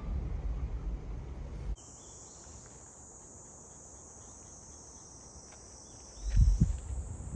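Insects chirring steadily, high-pitched, in a quiet spell after a low rumble of wind noise cuts off abruptly about two seconds in. Near the end a brief loud gust of wind buffets the microphone.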